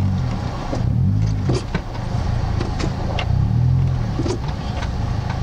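Suzuki SJ-series off-roader's engine running under load, its revs rising and falling several times as the driver works the throttle to creep over rough ground. A few sharp cracks and knocks sound through it.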